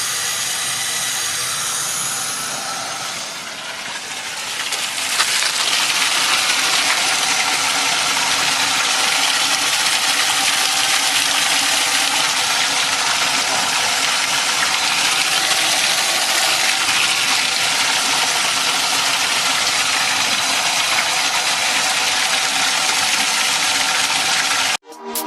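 Pressurised water hissing and spraying from a leaking pipe, a steady rush that grows louder about five seconds in and cuts off suddenly near the end.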